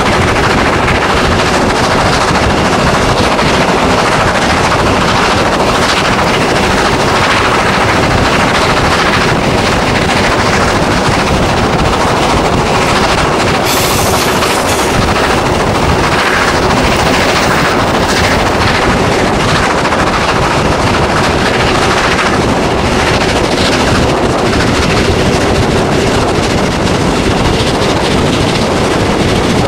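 Steam locomotive 41 1144, a two-cylinder DR class 41, working hard up a steep gradient, its exhaust beats coming in a rapid, steady chuffing. It is heard from an open carriage window just behind the engine, mixed with the train's running noise on the rails.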